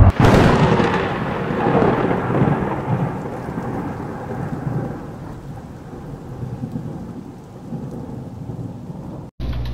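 Thunderclap sound effect with rain: a sharp crack at the start, then a long rumble and rain hiss that slowly fade, cut off abruptly near the end.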